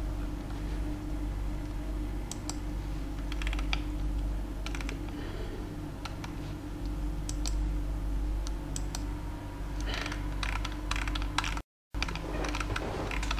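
Scattered clicks of a computer keyboard being used to navigate, over a steady low hum; the clicks come thicker a few seconds before the end, and the audio cuts out for a moment near the end.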